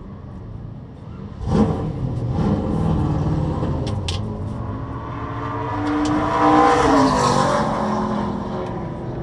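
Race car engine noise that jumps up sharply about a second and a half in and swells again to a peak around seven seconds before easing off.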